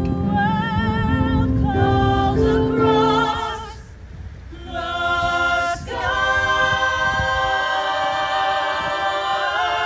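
Mixed ensemble of male and female voices singing in harmony: a run of changing notes, a brief drop about four seconds in, then the voices swell into a long held chord with vibrato.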